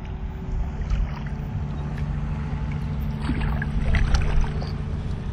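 Steady low mechanical hum like a motor running, with a few short clicks and scrapes about three to four seconds in.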